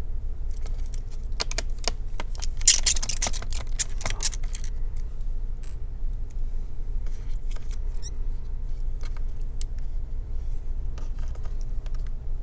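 Small clicks and taps of tools and parts being handled on an opened laptop, with a louder scraping rustle about three seconds in, over a steady low hum.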